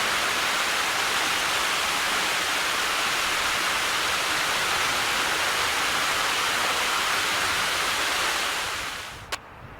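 Steady rush of flowing water, fading down shortly before the end, followed by a single sharp click.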